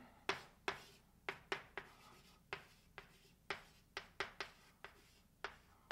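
Chalk writing on a blackboard: about a dozen light, sharp taps and short strokes at an uneven pace as a word is written.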